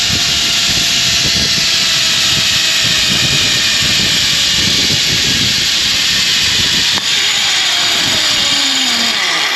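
Zipline trolley pulleys running along a steel cable: a loud, steady whirring hiss mixed with rushing wind, with a tone that slides slowly lower as the rider slows toward the platform. The sound falls away at the end as the trolley arrives.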